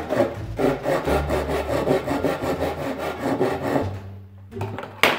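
Fine-toothed hand saw cutting through a thick wooden board in quick back-and-forth strokes, which stop about four seconds in. A single sharp knock follows near the end.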